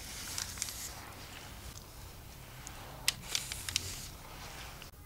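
Parchment paper on a baking tray rustling and crinkling, with a few light clicks, as gloved hands move and press raw bread dough on it. Two short bouts of rustling come about half a second in and again about three seconds in.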